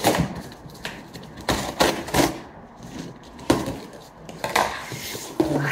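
Scissors cutting into a cardboard shipping box: sharp snips with cardboard scraping and knocking, coming at irregular intervals.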